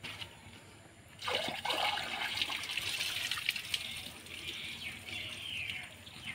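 Water trickling and splashing, starting about a second in and running on steadily with small crackles.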